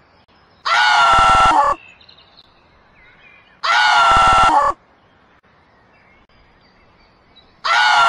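Giant panda calling: a high-pitched squealing bleat, about a second long, heard three times about three seconds apart.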